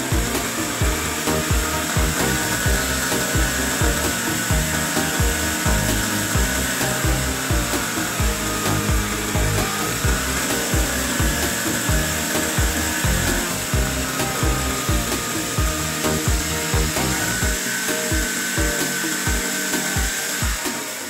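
A small electric motor whines as it spins a model five-cylinder radial engine, its pitch drifting up and down. Background music with a steady beat plays throughout.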